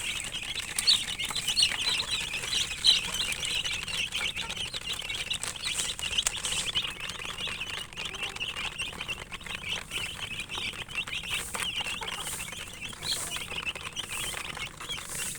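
A brood of domestic chicken chicks peeping continuously, many short high chirps overlapping.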